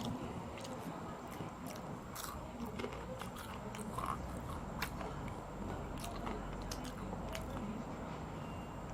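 Close-up chewing of crispy fried banana, with irregular crunches and wet mouth clicks scattered through the chewing.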